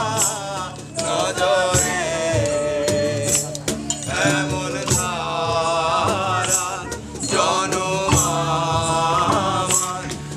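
Live Bangla folk music: male voices singing a melody over violin and a plucked lute, with a low bass line and a steady percussive beat.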